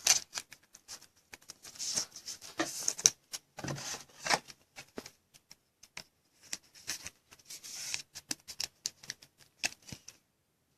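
Trading cards being handled: scattered light clicks and brief rustling slides of card stock, with short quiet gaps, the last second or so nearly silent.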